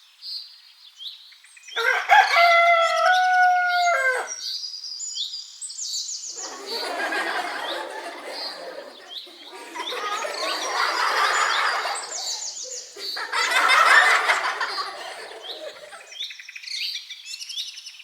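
Small birds chirping throughout, with a rooster crowing about two seconds in. Three longer harsh, noisy stretches of sound follow in the middle.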